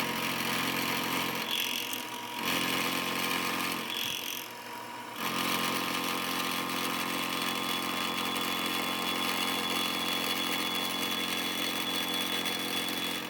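Bridgeport vertical milling machine running, its cutter taking a cleanup pass along the saw-cut edge of a metal plate. The sound eases off twice in the first five seconds, then runs steady, and drops away at the end.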